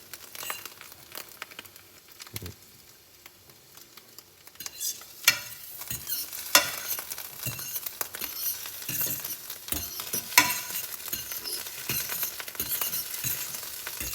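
Scrambled eggs sizzling in a buttered frying pan while a utensil stirs them. The crackle grows stronger about five seconds in, and there are a few sharp clicks of the utensil against the pan, about five, six and a half and ten seconds in.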